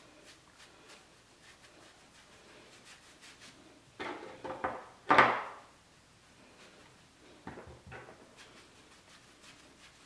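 Light knocks and clatter of small hard objects being handled and set down, loudest about five seconds in, with a few more knocks near the eight-second mark and faint ticks between.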